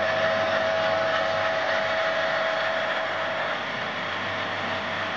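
Metal lathe running with a boring bar cutting the cylinder-liner bore in an aluminium engine block: a steady machine whine over a hiss of cutting noise, easing a little partway through.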